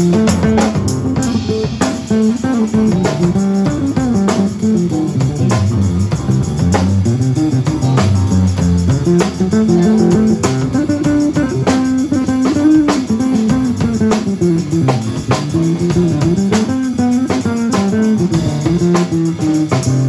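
Live band music with an electric bass guitar prominent, playing a moving melodic line in the low register over frequent sharp percussive hits.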